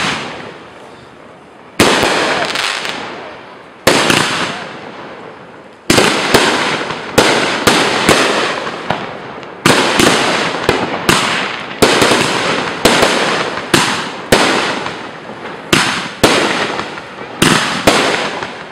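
Aerial fireworks bursting close overhead: sharp bangs, each followed by fading crackle and hiss. The first three come about two seconds apart, then they quicken to a rapid run of about two a second.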